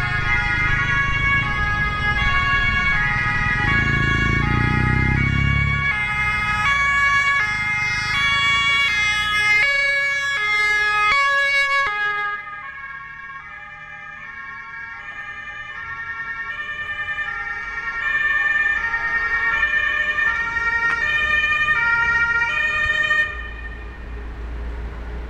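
German emergency-vehicle two-tone siren (Martinshorn) alternating steadily between two pitches as ambulances pass in traffic, with engine rumble of passing vehicles in the first few seconds. The siren drops away about halfway through, comes back louder a few seconds later, and cuts off near the end.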